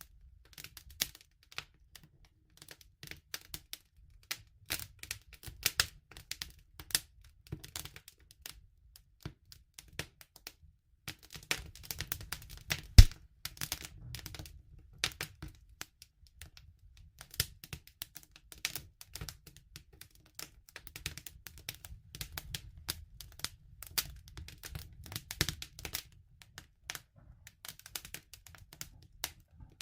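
Campfire crackling: irregular sharp pops and snaps of burning wood over a low, steady rumble, with one loud pop about thirteen seconds in.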